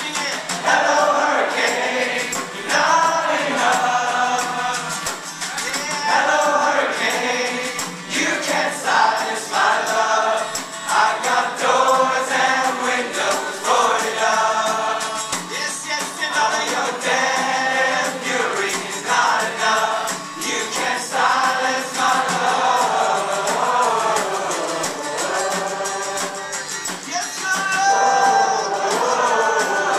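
Live stripped-down rock performance: several male voices singing together in harmony over a strummed acoustic guitar and a snare drum, heard thin with no deep bass.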